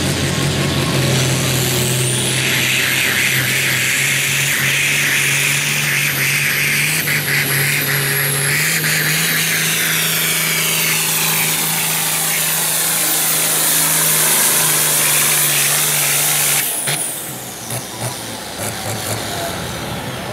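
International Harvester tractor's turbocharged diesel engine at full throttle, pulling a weight-transfer sled down the track. A steady engine note carries a high turbo whine that climbs in the first two seconds and holds. About 17 seconds in the throttle is cut, the level drops and the whine falls away as the engine slows.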